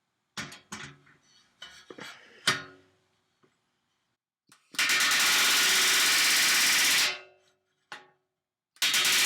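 Pneumatic rivet gun driving a solid aluminium aircraft rivet against a bucking bar: a few clicks and knocks of the tools being set in place, then one steady rattling burst of about two seconds, and a second burst starting near the end.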